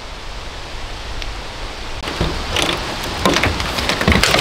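A hinged clear corrugated plastic roof panel being pushed open, clattering and knocking in a quick series of rattles that begin about two seconds in, over a steady background hiss.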